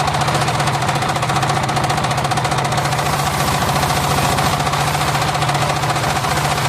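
Homemade engine-driven circular sawmill running steadily, its engine giving a rapid, even pulse under a constant whine from the spinning saw blade.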